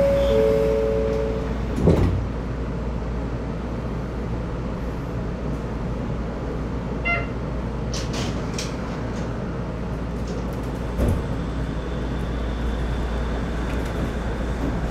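Steady low hum inside the cab of a Shonan Monorail suspended car, with a two-note electronic tone held for the first second and a half. A few sharp clicks come at about two, eight and eleven seconds, and a faint short beep comes near the middle.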